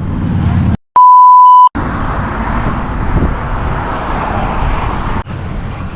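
A censor bleep: a pure 1 kHz tone lasting under a second, about a second in, cut in sharply. Around it is a steady rushing noise of wind and traffic on the bridge, which drops out briefly near the end.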